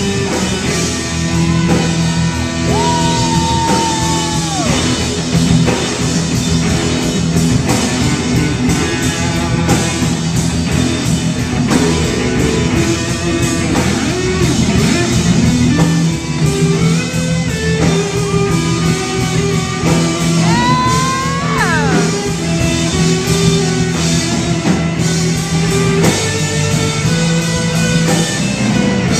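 Rock music with guitar, bass and drums, played at a steady loudness. A lead line holds long notes and bends them, about three seconds in and again around twenty seconds in.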